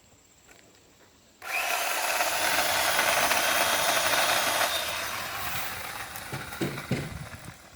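A Worx electric chainsaw starts abruptly about a second and a half in and runs loud and steady, cutting into wood. Its whine drops out a little past the halfway point, and the sound thins and fades with a few knocks near the end.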